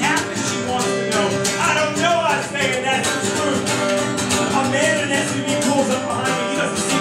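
A man singing with acoustic guitar accompaniment, performed live.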